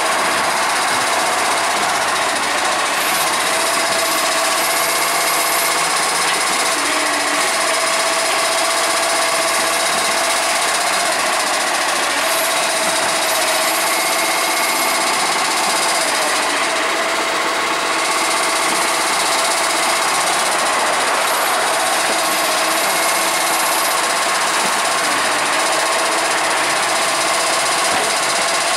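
Iveco Acco garbage truck's diesel engine running steadily with a rattle, together with the Bucher side-loader's hydraulics as the automated arm lifts and tips wheelie bins. Several steady whining tones hold throughout.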